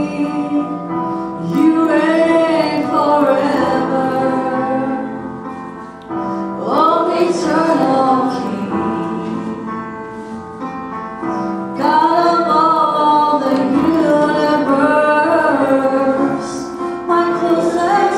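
Live worship song: a woman singing to an electronic keyboard, her sung phrases rising and falling over sustained keyboard chords.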